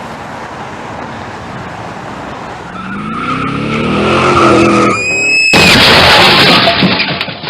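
Car crash sound effect: a car engine revs up with rising pitch and the tyres squeal, then a sudden loud crash about five and a half seconds in, with the noisy impact lasting about two seconds.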